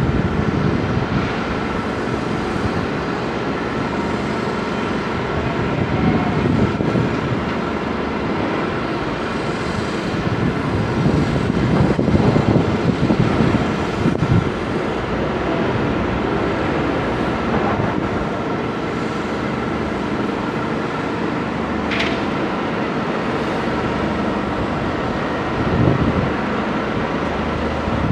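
Steady mechanical rumble of engines and traffic over a construction site, rising a little around the middle, with a faint steady high whine and one sharp tick late on.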